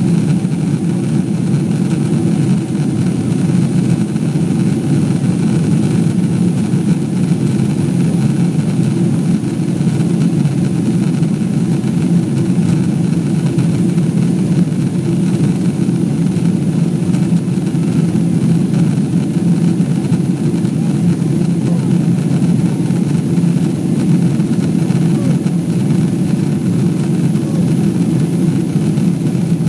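Steady cabin roar of a Boeing 777-200 airliner in flight, heard from a window seat over the wing: engine and airflow noise as a deep, even rumble that does not change.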